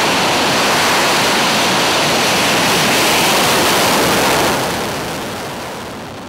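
English Electric Lightning's twin Rolls-Royce Avon turbojets running at speed as the jet makes a fast taxi run past, a loud, even rush of jet noise that begins fading about four and a half seconds in as the aircraft moves off down the runway.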